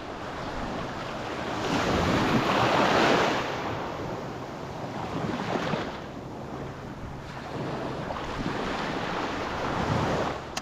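Ocean surf washing in small waves on a beach, with wind buffeting the microphone; the wash swells about two seconds in, again around five seconds, and once more near the end.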